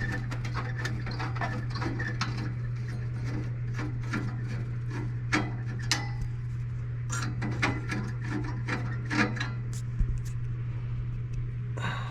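Hand tools working on a crusty old gas furnace's 1/4-inch screws: irregular metal clicks, taps and scrapes, over a steady low hum.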